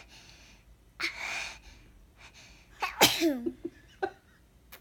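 A child sneezing: a breathy intake about a second in, then the loud sneeze about three seconds in, with a voiced cry that falls in pitch, and a short sharp sound about a second later.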